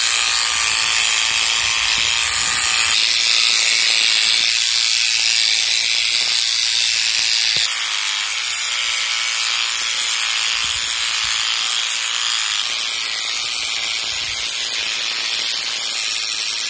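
Corded electric animal clippers running steadily as they shear through a dog's thick, matted coat, with the tone of the buzz shifting a few times.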